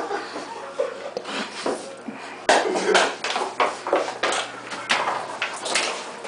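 Scuffling: irregular knocks, clatter and rustling as two people wrestle over a plastic water jug, with a sudden louder burst about two and a half seconds in.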